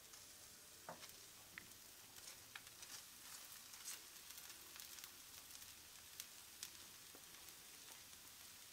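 Faint sizzling of a thin semolina and rice-flour dosa frying on a hot tawa, with oil drizzled around its edge, and scattered small crackles.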